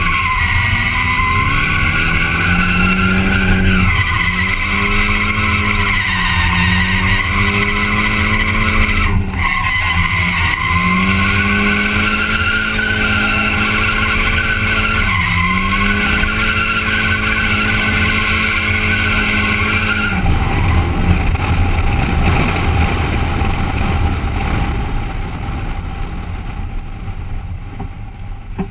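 Turbocharged SR20DET four-cylinder of a Nissan 240SX held at high revs through a drift, heard from inside the cabin, with tyres squealing. The revs dip briefly and climb back four times. About two-thirds through the engine comes off the throttle and the sound fades as the car slows.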